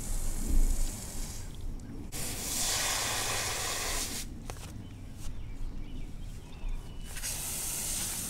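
Garden hose spraying water onto grass and mud: a hiss that comes and goes in bursts of about two seconds. Low rumbles near the start.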